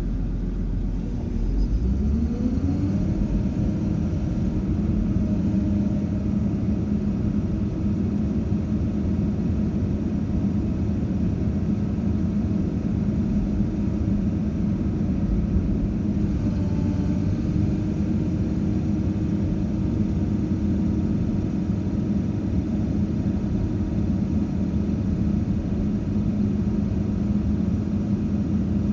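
Heavy machine's engine running, revving up about two seconds in and then holding a steady drone.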